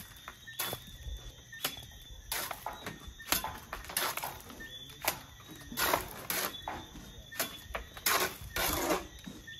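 Cement render being worked onto a block wall with a steel trowel and hawk: a run of short scrapes and taps, roughly one a second, some drawn out into longer scrapes.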